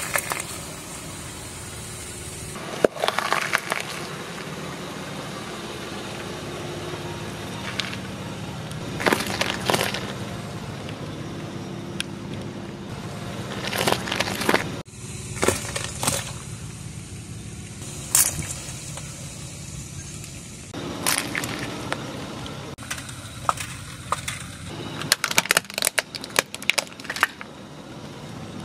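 A car tyre rolling slowly over vegetables on concrete and crushing them, among them a green bell pepper and a cucumber: a series of crunches and sharp cracks, with a flurry of rapid cracks near the end. The car's engine runs steadily underneath.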